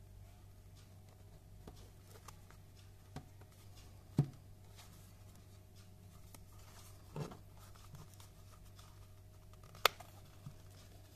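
Hands handling a stiff leather wallet: soft rubbing and a few light knocks, a low thump about four seconds in. Just before the end a sharp click, the brass press-stud snap on the card-pocket flap pulled open.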